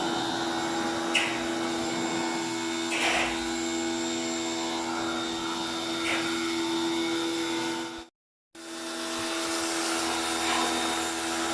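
Steady electric machine running: a constant motor hum over a rush of air or spray. It cuts out completely for about half a second roughly eight seconds in, then carries on as before.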